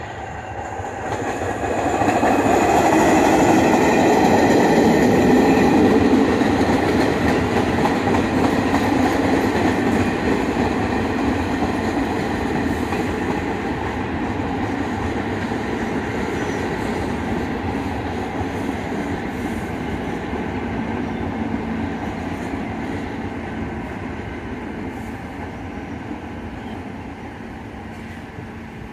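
R46 subway train rolling past on the open track, steady wheel and rail noise. It swells over the first couple of seconds, is loudest for a few seconds after that, then slowly eases off as the rest of the cars go by.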